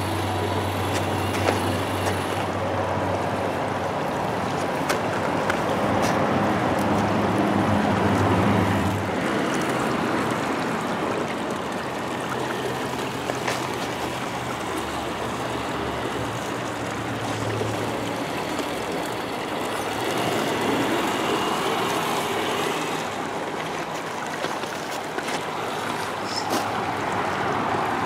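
Shallow meltwater stream flowing and gurgling, with the steady low hum of RC scale crawlers' electric motors and gearboxes as the trucks drive through the water; the hum is strongest over the first nine seconds or so, then comes and goes.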